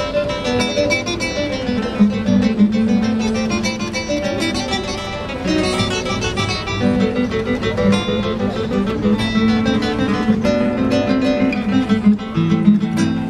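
Two classical guitars playing a duet: a continuous flow of plucked fingerstyle notes over lower bass notes.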